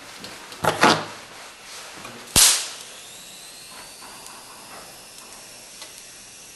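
A single sharp snap of a high-voltage spark from the lifter's monitor-derived supply, preceded by two shorter, softer noises. After the snap a faint high-pitched whine rises slowly.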